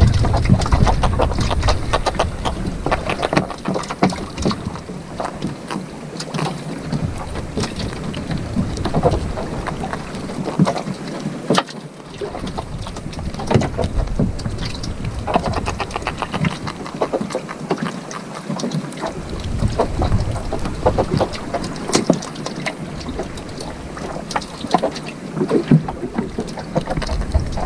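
Wind buffeting the microphone in gusts, a low rumble that comes and goes, over scattered sharp clicks and knocks as fish and a multi-hook sabiki rig are handled in a wooden boat.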